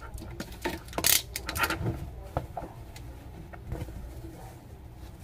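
Close handling of a new fabric baseball cap and its paper tag being taken off: a run of short clicks and rustles in the first two and a half seconds, then fainter, sparser handling noise.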